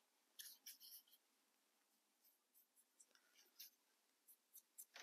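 Faint, scratchy rubbing strokes in short bursts: colored weathering chalk being blended onto a small model cabin's roof.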